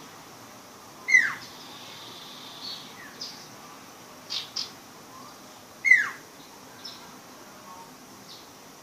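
A young sirpu songbird at its learning stage calling in short, scattered phrases. The two loudest notes are sharp downward-swooping whistles, one about a second in and one near six seconds, with a quick pair of high chirps between them and softer chirps scattered around.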